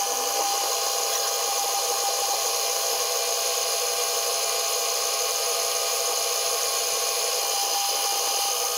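Metal lathe running steadily at speed, a steady whine with one clear tone over machine noise. It is spinning a steel rod cut from an old bolt while it is polished to size with wet-and-dry abrasive paper.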